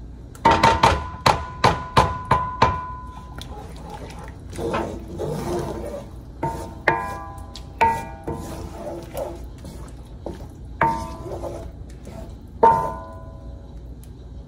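A wooden spoon knocking against the rim of a large metal pan, the pan ringing after each knock: a quick run of about eight knocks near the start, then single knocks every second or two. Between the knocks, the spoon stirs a thick sauce.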